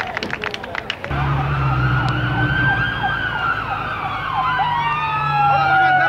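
Brief clapping, then about a second in, sirens start: several overlapping wails rising and falling in pitch over a steady low hum.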